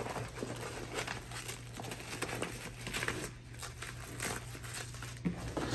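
Nylon fabric and straps of a plate carrier rustling and crinkling as it is handled, with scattered small clicks.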